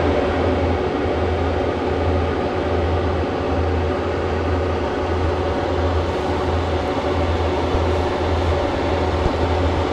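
Induction cooktop running under a pot of water: steady cooling-fan whir with a low electrical hum that pulses on and off about once a second.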